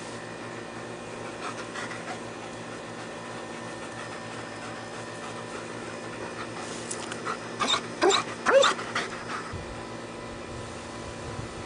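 German shepherd dogs panting, then a quick run of four or five short, high excited cries about eight seconds in.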